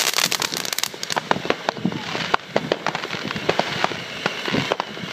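Fireworks and firecrackers going off: a dense run of rapid crackling in the first second, then scattered sharp cracks and bangs.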